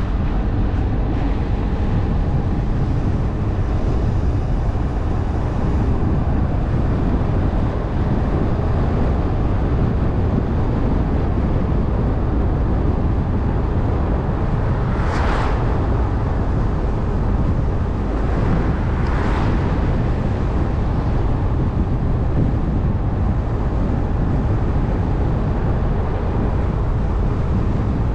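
Steady low rumble of a Jeep driving on a wet road, its engine and tyres running. About halfway through, and again a few seconds later, there is a brief rising-and-falling tyre hiss as oncoming cars pass on the wet tarmac.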